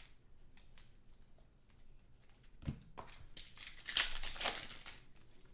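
Foil trading-card pack being torn open by hand, with a crinkling tear strongest from about three and a half to five seconds in, after a few light handling clicks.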